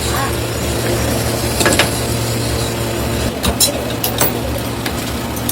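A workshop machine motor running steadily with a low hum, with a few sharp metallic clicks or knocks, mostly in the second half.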